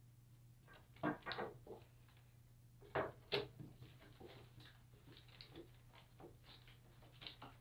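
Wooden knocks and bumps as a wooden frame-and-panel assembly is set down and shifted on a workbench: a pair of knocks about a second in, another pair about three seconds in, then lighter scuffs and taps, over a faint steady hum.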